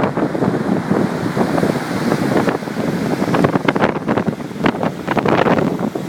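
Strong gusty wind buffeting the microphone, a loud rumbling roar broken by rapid irregular blasts.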